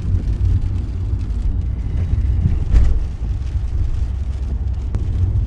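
Steady low rumble, with a brief louder swell about three seconds in.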